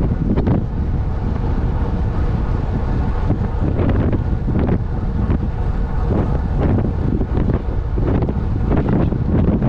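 Wind buffeting the microphone as a road bike is ridden at about 40 km/h, a loud, steady rumble that swells in irregular gusts every second or so.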